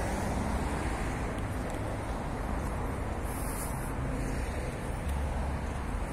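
Steady hum of distant road traffic, with wind noise on the phone's microphone.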